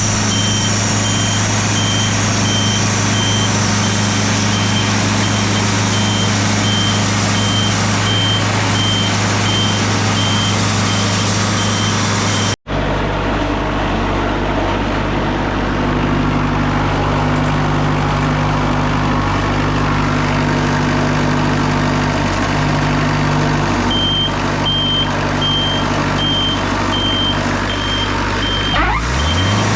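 Sawmill engine running steadily under a loud, constant drone, with a steady train of repeating electronic beeps. The beeps stop about twelve seconds in, where the sound cuts out for an instant and the engine note changes, and they return near the end as the engine pitch rises.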